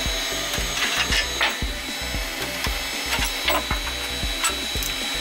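Thin plywood sheet being handled and slid off the slotted aluminium bed of a 3018 CNC laser engraver, with wood scraping and light knocks, over background music with a steady beat.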